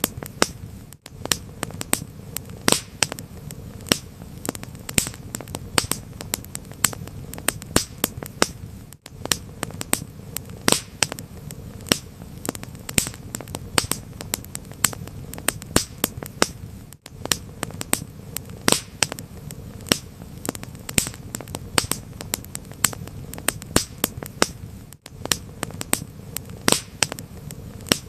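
Wood fire crackling: frequent sharp pops and snaps over a steady low rumble of flames, with a very short gap about every eight seconds.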